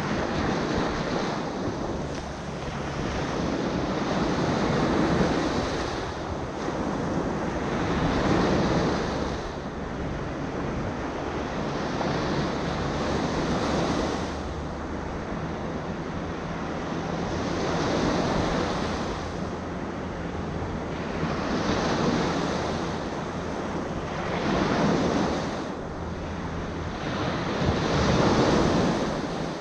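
Small surf breaking close in at the shoreline and washing up the sand, swelling and ebbing with each wave every few seconds. Wind is buffeting the microphone throughout.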